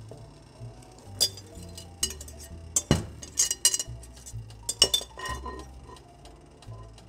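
Wire whisk clinking and scraping against a glass mixing bowl and a mesh strainer while the last of the custard mixture is pushed out. The sharp clinks come at irregular times, busiest in the middle.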